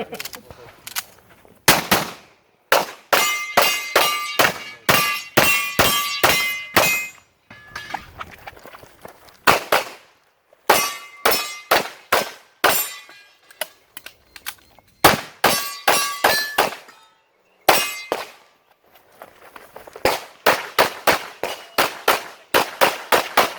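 Fast strings of pistol shots, many followed by the ringing clang of hit steel targets, broken by short pauses between strings.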